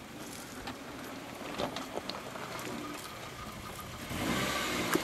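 Suzuki Grand Vitara 4x4 creeping over a rutted dirt trail, its engine running low while the tyres crunch over soil and stones with scattered small knocks. The noise grows louder about four seconds in.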